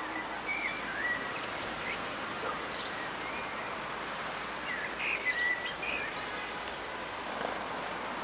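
Outdoor ambience: songbirds chirping here and there over a steady background hiss.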